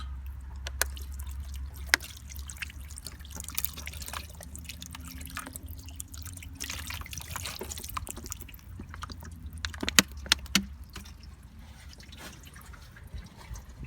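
Water rinsing Coca-Cola residue off a car battery terminal, trickling and dripping with scattered sharp splashes, two of them louder, over a steady low hum.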